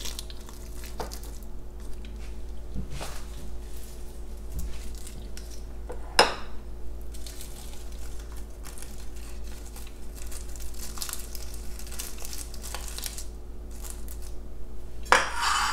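Crisp sheets of dried nori seaweed crinkling as fingers handle them and tuck them into ramen bowls, with scattered light crackles. There is one sharp click about six seconds in, and a louder rustle near the end.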